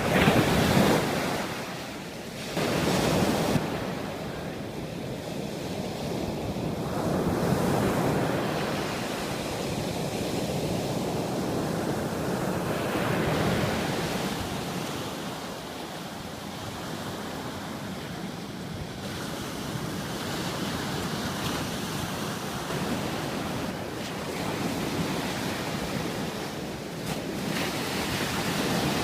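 Sea waves washing onto a beach, surging and falling every few seconds, with wind buffeting the microphone. The loudest surges come right at the start and about three seconds in.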